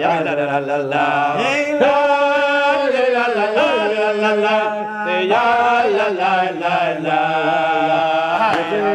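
A group of men singing a slow Hebrew religious song together, holding long, gliding notes in a chant-like melody.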